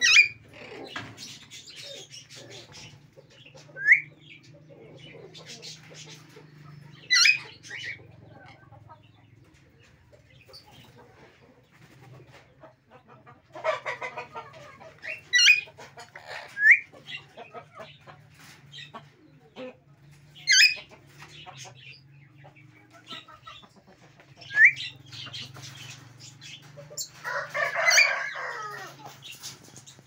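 Alexandrine parakeets giving short, sharp, high-pitched screeching calls every few seconds, with two longer, rougher bursts of calling midway and near the end.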